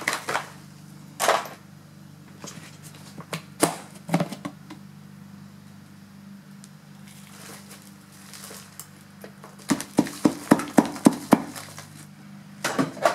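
Sharp plastic clicks and knocks as a vacuum cleaner's dust canister and filter are handled and knocked over a sack to empty out the dust, with a quick run of about ten sharp knocks about ten seconds in.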